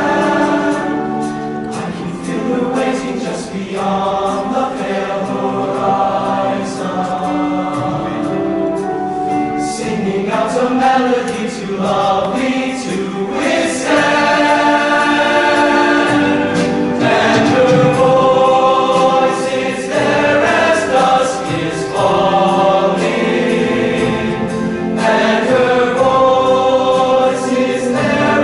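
All-male show choir singing in multi-part harmony, holding chords that change every second or two.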